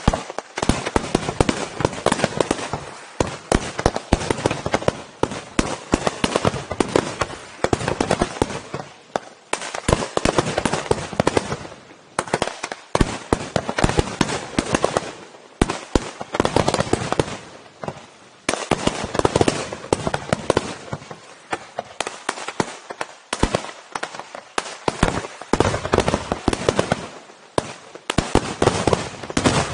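Fireworks display: a dense, rapid barrage of aerial shell bursts, coming in surges every few seconds, which stops abruptly at the very end.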